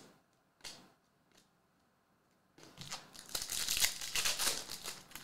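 Hands tearing open and crinkling the foil wrapper of a Mosaic soccer card pack, starting about two and a half seconds in, after a few soft clicks of cards being handled.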